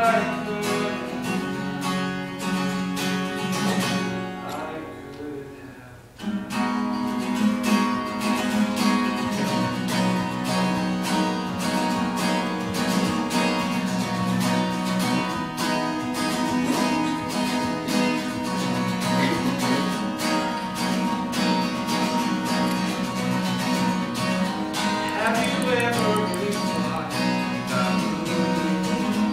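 Acoustic guitar strummed steadily, with a man singing over it. The strumming dies away about four seconds in and starts again abruptly about two seconds later.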